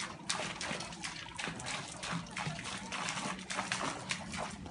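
Koi splashing and churning at the surface of a pond as a crowd of them jostle to feed, in short irregular splashes several times a second.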